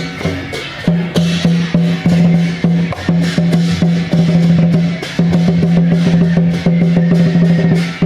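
Loud music driven by drums and percussion, beating an even rhythm over a held low note.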